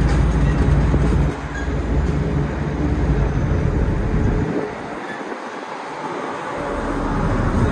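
Running noise heard inside a moving city bus: a steady rumble of engine and road with a noisy hiss over it. The deep rumble thins out for a couple of seconds just past the middle, then builds up again.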